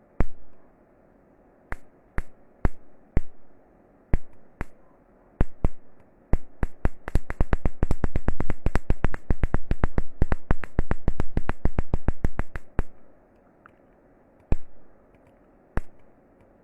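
Sharp clicks from the bench-wired Nissan SR20 harness running on a Honda ECU. A few irregular clicks come first, then a rapid, even run of about eight to ten a second for around six seconds, then a few spaced clicks again.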